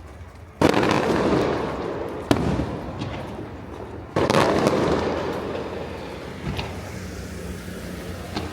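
Aerial fireworks shells bursting: three loud booms, the first about half a second in, the next two about two and four seconds in, each trailing off in a long rolling echo, with a smaller crack later on.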